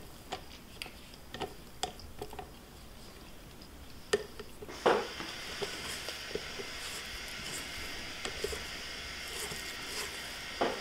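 A spatula scraping sticky peanut-butter cookie dough off a stand mixer's beater and around a stainless steel bowl, with small clicks and knocks and one louder thump about five seconds in. After the thump a faint steady high hum begins and carries on.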